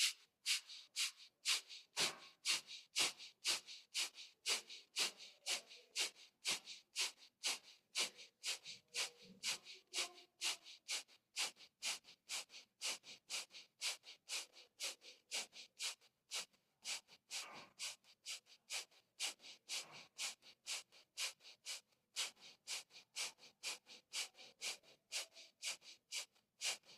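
Kapalbhati yogic breathing: short, forceful exhalations through the nose, each followed by a passive inhalation, in a steady rhythm of about two a second.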